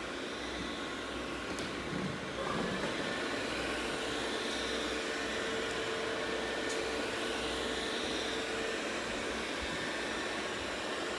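ZOOZEE Z70 robot vacuum running a cleaning pass: a steady whirring hum, with a higher steady tone joining for several seconds in the middle.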